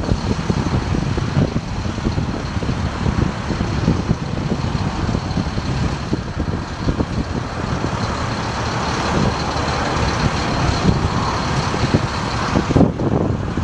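Freightliner FL60 bucket truck's diesel engine running to drive the hydraulics while the Altec over-center aerial boom is raised and swung. A steady mechanical rumble and hiss with a faint high whine cuts off shortly before the end.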